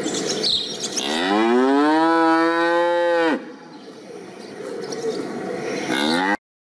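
Domestic cow mooing: one long moo starting about a second in, rising in pitch and then held for about two seconds before stopping abruptly.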